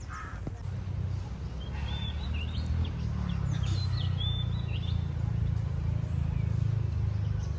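Small birds chirping in short whistled calls that rise and fall in pitch, a few at a time, over a steady low rumble.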